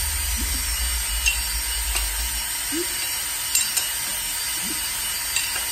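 Cordless drill spinning a priming rod to drive the oil pump of a Chrysler 440 V8, pre-oiling the engine. Its low hum stops about two and a half seconds in, and a few sharp metal clinks come from the wrench turning the crankshaft.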